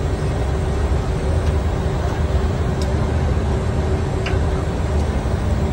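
Steady flight-deck noise of a Gulfstream G550 on approach to land: a dense low rumble of airflow and engines with a thin steady hum above it, and a couple of faint clicks.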